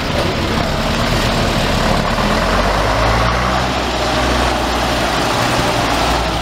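Engine of a vintage heavy truck running as the truck drives slowly past. Its low, steady note grows stronger in the middle as the truck comes closest.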